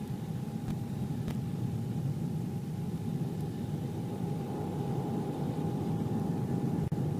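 Lockheed SR-71 Blackbird's Pratt & Whitney J58 jet engines running as it taxis: a steady low rumble with a constant whine above it, slowly growing louder. The sound drops out for an instant near the end.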